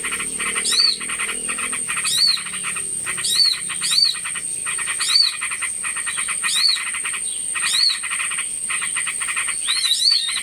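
Small-bird lure recording: a high, arched chirp repeated about once a second over fast, rattling chatter, with a steady high-pitched whine.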